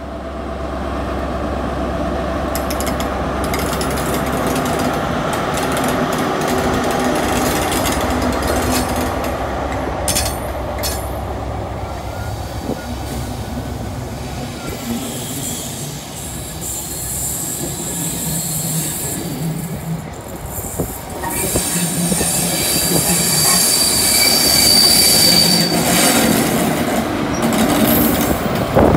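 ScotRail Class 43 High Speed Train pulling away: the diesel power car's engine running steadily under power, then the coaches rolling past with a thin high wheel squeal a little past the middle, and the trailing power car's engine growing louder near the end as it passes close.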